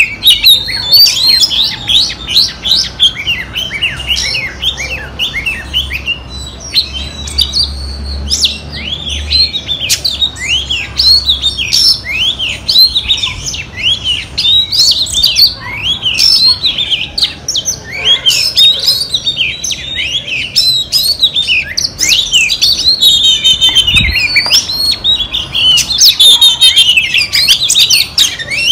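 Female oriental magpie-robin singing, the kind of song keepers use to lure a male into singing: a continuous run of varied, quick whistled notes that rise and fall. A single soft thump sounds about 24 seconds in.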